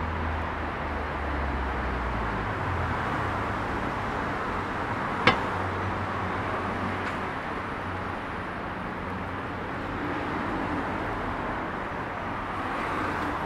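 City street ambience: a steady wash of traffic noise, with a low engine rumble in the first few seconds. One sharp knock about five seconds in is the loudest sound.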